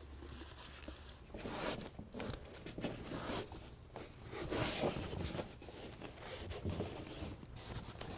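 Rag wet with rubbing alcohol wiping the painted truck bed: a few soft rubbing swishes at uneven intervals.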